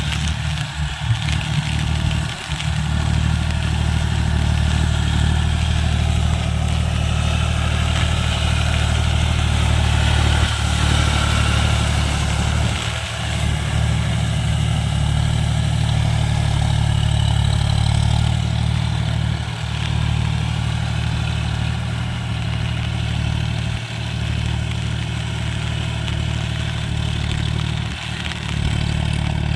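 John Deere tractor's diesel engine running steadily at a constant speed.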